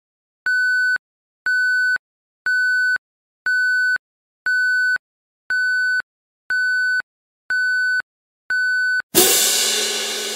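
Electronic countdown timer beeping: nine identical steady high beeps, about one a second and each about half a second long. About nine seconds in, a loud cymbal-like crash rings out and fades, marking the end of the countdown.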